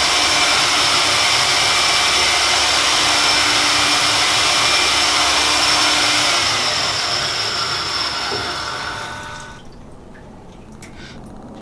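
Engine-block machining machine running steadily with a loud hissing whir, then winding down from about six and a half seconds in and cutting off about nine and a half seconds in.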